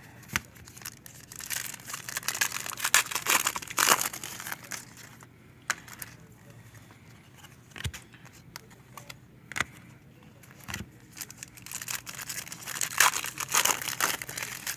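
Foil trading card packs being torn open and crinkled by hand, in irregular bursts of crackling with sharp tearing clicks, heaviest near the start and again near the end.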